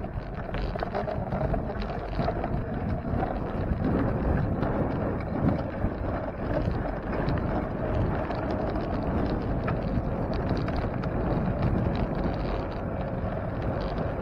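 Wind buffeting the microphone of a camera on a moving bicycle, over steady rolling tyre and road noise.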